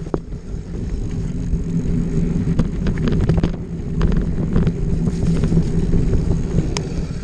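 Off-road motorcycle engine running at a fairly steady pitch while riding a trail, with scattered knocks and clicks from the bike over rough ground and some wind on the microphone.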